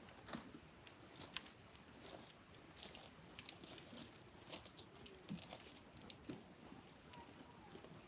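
Wood campfire crackling: faint, irregular sharp pops and snaps from the burning logs.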